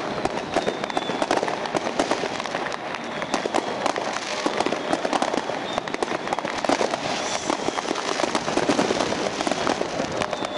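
Many New Year's fireworks going off at once: a dense, unbroken run of bangs and crackles, with a faint high whistle now and then.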